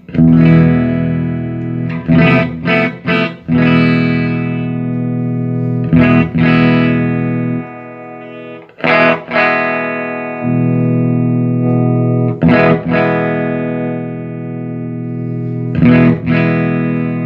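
Electric guitar played through a 1975 Fender Twin Reverb master-volume amplifier, freshly serviced and being sound-tested. Chords are struck and left to ring out, with a quick run of strums about two seconds in and single chord hits every few seconds after.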